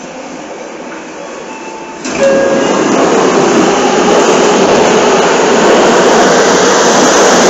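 Running noise of a Seibu 6000-series train on an underground line; about two seconds in it jumps suddenly much louder and stays loud.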